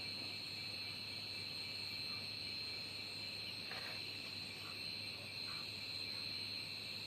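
Insects trilling steadily in a continuous high-pitched chorus, with a faint short sound a little under four seconds in.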